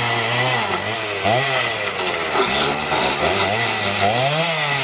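Gas two-stroke chainsaw running at high revs and cutting through a wooden support post, its engine pitch dipping and rising again several times as the chain bites into the wood.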